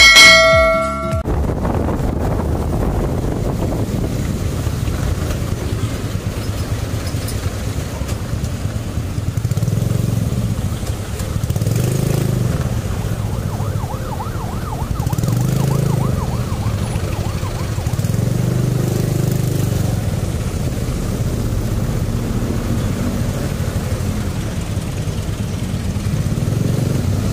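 A short bright chime sound effect, then a motorcycle's engine running with road and wind noise as it rides in dense city traffic. The engine swells and eases off several times.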